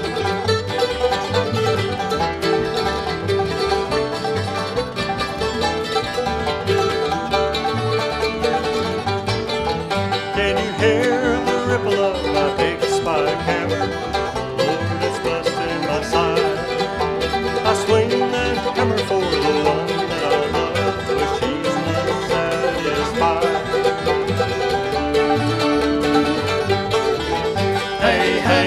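Bluegrass band playing an instrumental passage with no singing: banjo, fiddle, mandolin, acoustic guitar and upright bass together, at a steady level.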